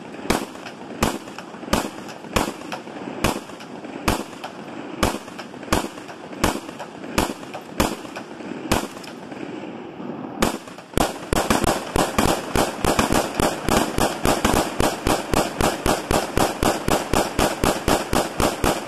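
Gunshots in a steady string, about two a second, then after a short pause about ten seconds in a fast run of rapid fire, about five shots a second, that stops at the end.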